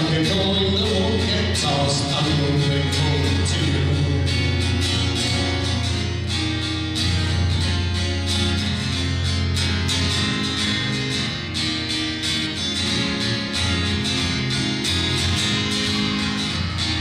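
A man singing to his own acoustic guitar.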